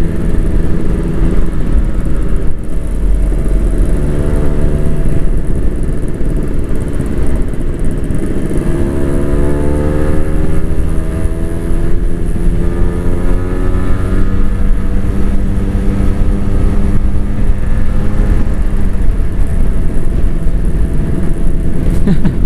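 Two-stroke Kawasaki Ninja motorcycles running at road speed, the engine note climbing in pitch as they accelerate about a third of the way in and again shortly after, with an aftermarket exhaust on the bike ahead.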